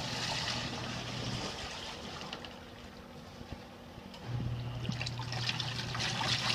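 XtremePowerUS twin-tub portable washer's wash tub churning water and jeans, with the motor humming and water sloshing. The motor stops for about three seconds, then starts again with louder swishing.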